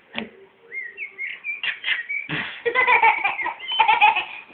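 A baby squealing in high gliding cries and then laughing hard in quick repeated bursts, after a short sharp sound right at the start.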